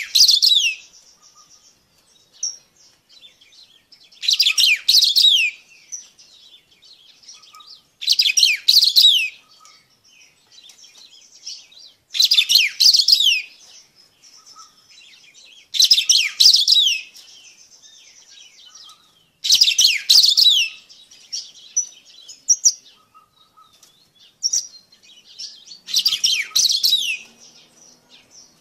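Black-throated saltator (Saltatricula atricollis) singing: a short, high phrase of quick downward-sliding notes, about a second long, repeated roughly every four seconds, seven times, with faint high notes in between.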